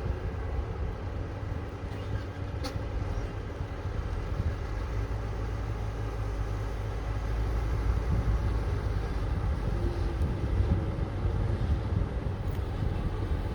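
Excavator's diesel engine running with a steady low rumble, getting a little louder about halfway through.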